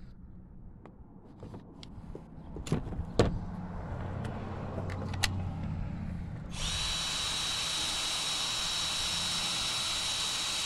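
HART cordless impact gun running at a steady speed with a high, even whine, starting about six and a half seconds in and cutting off at the end. Before it come a few sharp knocks of tools being handled.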